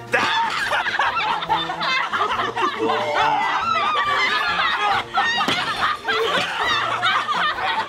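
Several people laughing loudly together, their high cackling voices overlapping throughout.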